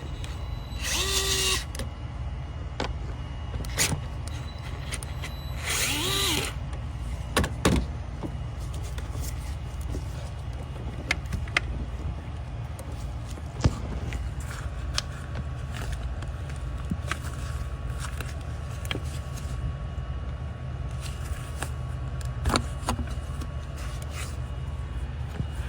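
A cordless power tool runs in two short whirring bursts, about one and six seconds in, amid scattered clicks and knocks of hand work on the car's parts, over a steady low rumble.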